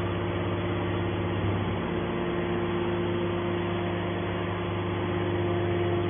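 Hydraulic scrap metal baler's power unit running with a steady hum while its hinged press lid is raised; one tone in the hum grows stronger near the end.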